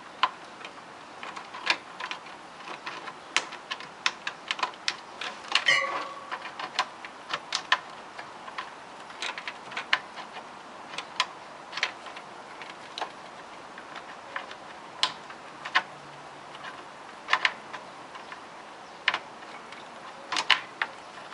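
Irregular sharp clicks and taps of power cables and plastic connectors being handled and plugged in inside a desktop PC case, one ringing briefly about six seconds in.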